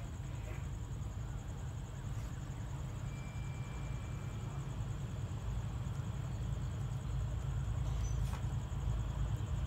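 Outdoor evening ambience: a low, steady rumble that grows slightly louder toward the end, under a continuous high insect trill. A brief thin tone sounds about three seconds in.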